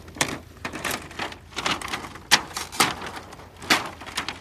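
Thin plastic and paper sheets from inside a dismantled TV being pulled loose and torn, in a string of uneven crackling rips with the sharpest one about halfway through.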